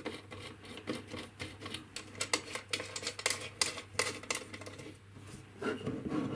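Irregular small clicks and taps of fingers working at a black plastic motor-controller case, prising off a plastic terminal cover.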